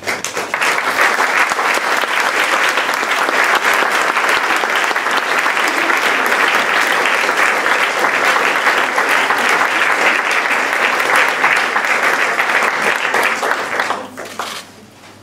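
Audience applauding steadily, a dense crackle of clapping hands that dies away near the end.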